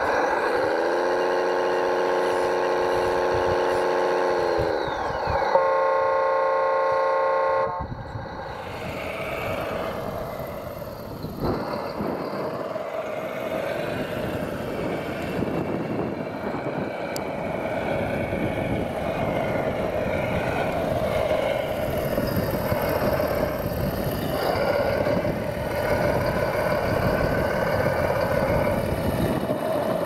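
Horn blasts from an RC construction model's sound module. A held horn chord drops in pitch about four seconds in, then a second blast cuts off sharply at about eight seconds. After that comes the steady simulated diesel engine sound and motor running of the RC trucks and loader.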